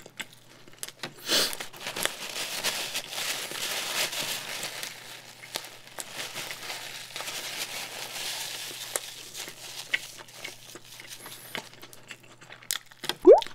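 Paper napkin crinkling and rustling as it is handled and rubbed between the hands, a dense crackly rustle for several seconds that thins out to scattered crackles.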